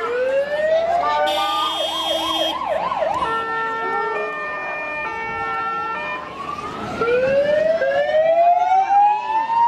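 Electronic emergency-vehicle siren cycling through its patterns: a rising wail, a fast warbling yelp, a stretch of steady alternating tones, then a long rising wail again from about 7 seconds in.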